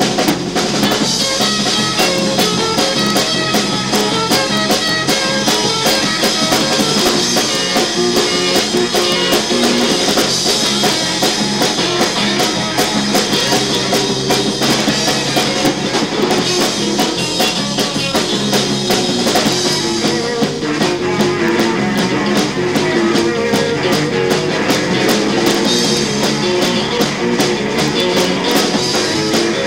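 Live rock band playing an instrumental stretch: drum kit keeping a steady beat under guitars.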